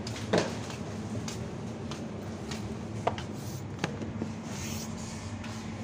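Supermarket room tone: a steady low hum with a few short clicks and knocks, the loudest just after the start and two smaller ones a few seconds in.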